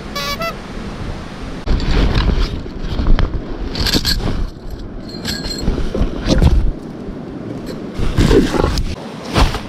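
Gear being pulled out of a backpack right by the microphone: stuff sacks and nylon fabric rustling, scraping and bumping in irregular bursts, starting after about a second and a half.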